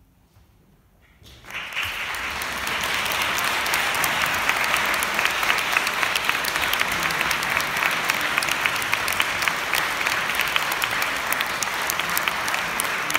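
Audience applause: after about a second of near silence, clapping breaks out and quickly builds to a full, steady round of many hands clapping.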